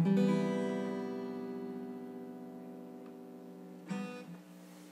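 Acoustic guitar: a chord strummed and left to ring out slowly, then a second, softer chord strummed about four seconds in.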